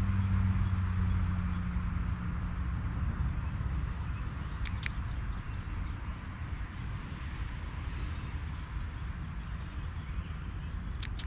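Steady outdoor background noise with a low hum that fades away over the first few seconds, and two faint small clicks, one about halfway through and one near the end.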